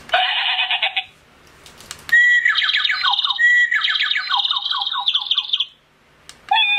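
Wireless plug-in doorbell receiver playing its recorded bird-call melodies through its small speaker, stepping from one ringtone to the next. A short squawk-like call comes first. About a second later there is a longer chirping, warbling birdsong with quick falling notes, and another call starts near the end.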